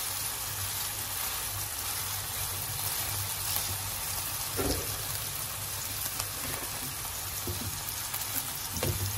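Ribeye steak sizzling steadily in olive oil in a hot nonstick frying pan as its second side sears after a single flip, over a low steady hum. Two light knocks, one about halfway through and one near the end.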